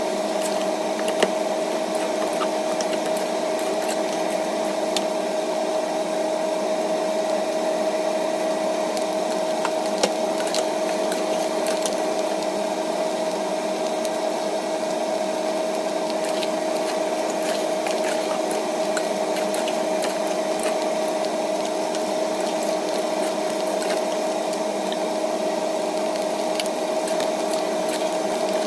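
Metal spatula stirring and scraping rice in a clay pot: scattered light clicks and scrapes, with a couple of sharper knocks about a second in and near the middle. Beneath them runs a steady hum with a constant tone, the loudest sound throughout.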